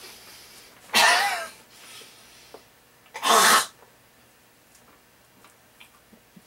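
A man coughing violently with a mouthful of dry ground cinnamon: two harsh, explosive bursts about two seconds apart. He has breathed the cinnamon into his throat.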